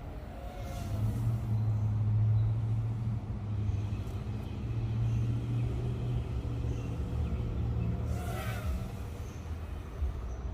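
Low, steady engine rumble of a motor vehicle, swelling about a second in and easing off near the end. A brief high-pitched vocal call comes about eight seconds in.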